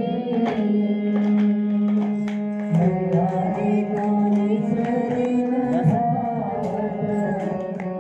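Indian song with a voice singing over tabla-style hand drumming and a steady held low note.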